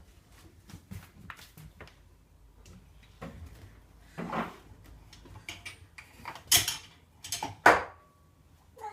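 A run of knocks and clatters as household items are handled, with three louder bangs in the second half.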